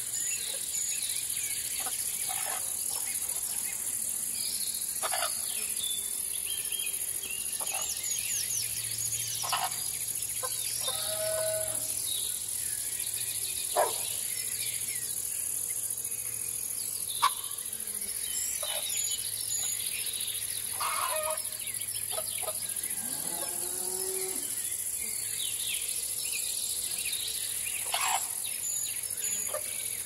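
Morning countryside ambience: a steady, high-pitched chorus of crickets and insects with scattered bird chirps. A farm animal calls a couple of times, the later call falling in pitch. Two sharp clicks stand out near the middle.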